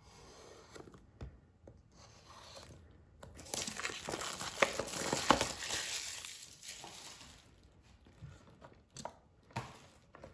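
A utility knife slits the clear plastic shrink wrap on a small cardboard box. About three seconds in, the film is torn and pulled off, crinkling loudly for a few seconds. A few light knocks follow as the box is handled.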